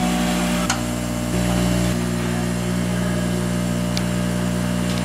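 Steady drone of running workshop machinery, with two light ticks: one under a second in, one near the end.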